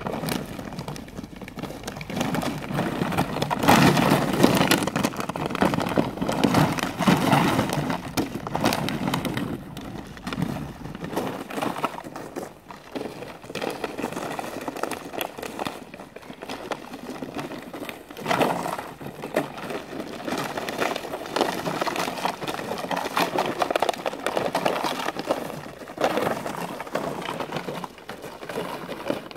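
Footsteps crunching in snow, mixed with a plastic bottle toy scraping and rattling as it is dragged over the snow with puppies tugging at it.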